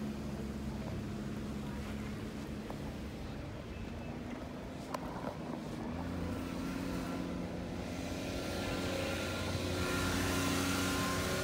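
A motor vehicle's engine running steadily with a low hum, joined in the last few seconds by a rising hiss.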